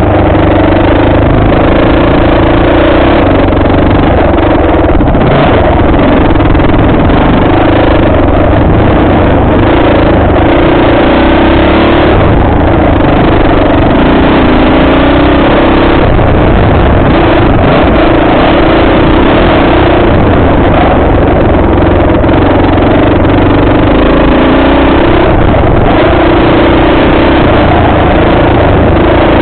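Off-road vehicle engine running loud and continuously under way, its pitch rising and falling as the throttle changes along the trail.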